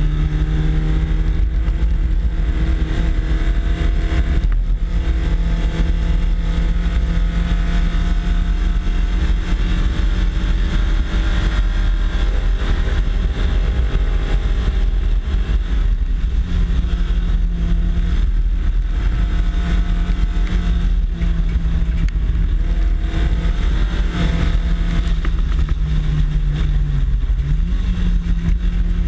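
Hill-climb race car's engine running hard uphill on a gravel road, heard with heavy wind rumble on the bumper-mounted microphone. The engine note holds fairly steady, with a brief dip and rise in pitch near the end.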